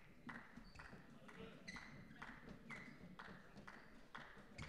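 Faint, even footsteps of about two a second: badminton court shoes scuffing and squeaking on the court mat as players walk between rallies.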